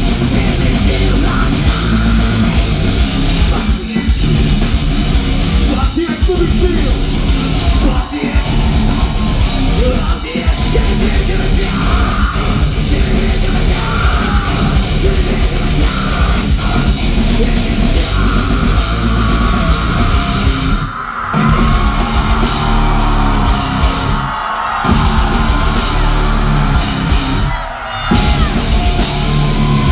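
Heavy metal band playing live and loud: distorted guitars, drums and shouted vocals. In the second half a held high guitar note rings over the band, and the music breaks off abruptly for three short moments near the end.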